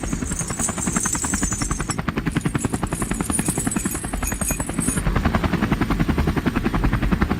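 Cartoon vehicle engine sound effect: a steady, fast chugging pulse of about ten beats a second, with a thin high hiss over it for the first few seconds.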